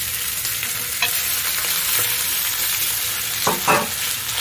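Marinated squab pieces sizzling in hot oil in a clay pot as they go in and are pushed about with chopsticks: a steady frying hiss, with a click about a second in and a short louder clatter near the end.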